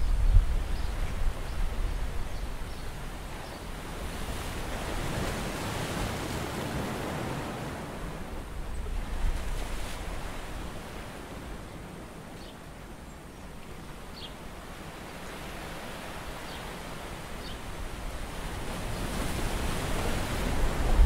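Seawater washing in and out over rocks at the shoreline, swelling and easing like waves, with low wind rumble on the microphone near the start and near the end.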